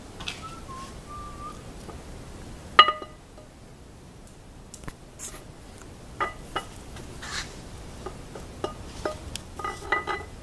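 Camshaft being slid by hand into the cam bearings of a Jeep 4.0 cast-iron engine block. Its lobes and journals knock against the bearings and block in scattered metallic clinks, with one sharp ringing clank about three seconds in and a cluster of lighter clinks near the end.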